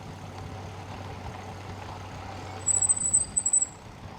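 Electric bike riding with a steady low hum. About two and a half seconds in, a loud high-pitched squeal comes in short pulses for about a second.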